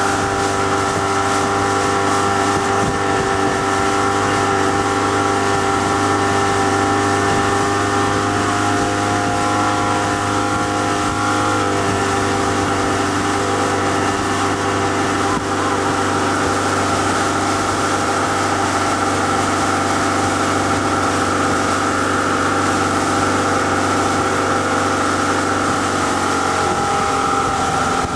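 Motorboat engine running steadily at speed while towing a tube, with rushing water and wind noise; its note dips slightly near the end.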